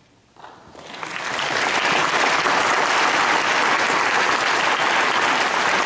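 Audience applauding at the end of a choral and orchestral performance: clapping breaks out about half a second in, swells over a second or so, then holds steady.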